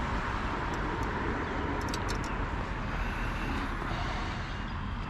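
Steady outdoor background noise with a low rumble, and a few faint ticks about two seconds in.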